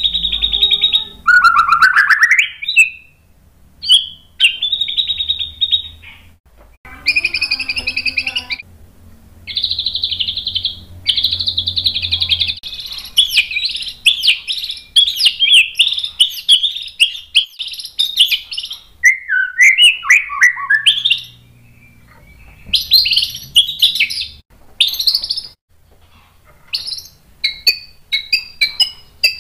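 White-rumped shama singing loud, varied song. It opens with long held whistles and a rising glide, runs into a fast jumble of notes in the middle, drops into falling notes, and ends in quick short chips. The bird is in full song, pouring out its learned repertoire of mixed-in phrases (isian).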